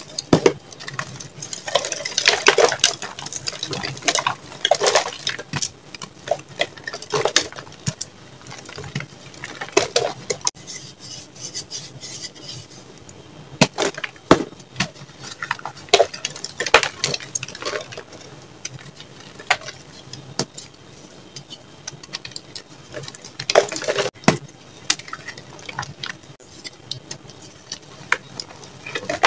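Soft, crunchy gym chalk hearts and blocks crushed and crumbled between bare hands. Irregular bursts of crackling crunches, each about a second long, with quieter gaps between.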